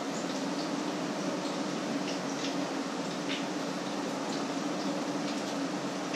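Food frying in oil in a pan: a steady sizzle with scattered faint crackles, over a low steady hum.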